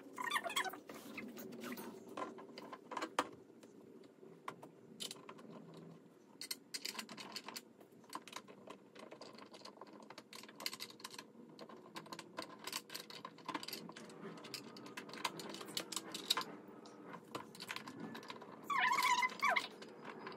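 Scattered small clicks, knocks and light rattles of chair parts and hardware being handled during assembly. Near the end a dog whimpers briefly.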